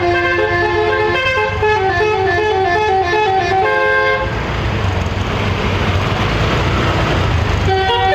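A six-note telolet musical air horn on a bus plays a quick stepping melody for about four seconds. A few seconds of rushing noise follow, and the melody starts again near the end, all over the low rumble of the bus engine.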